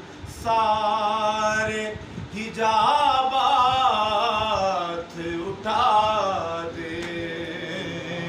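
A man singing a naat unaccompanied, in three long phrases of drawn-out, ornamented notes with short breaths between them.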